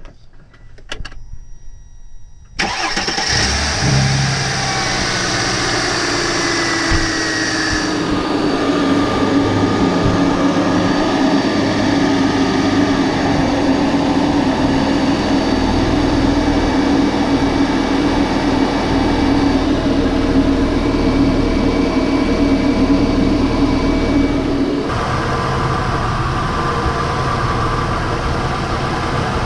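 Mercedes W163 ML-Class engine started after a few clicks, catching about two and a half seconds in, on its first start after an oil change. It runs at a raised idle that wavers for a few seconds, then settles into a steady idle, with a change in tone near the end.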